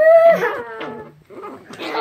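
A Chihuahua puppy gives a short, whining yelp that falls in pitch, during rough play-wrestling with a littermate.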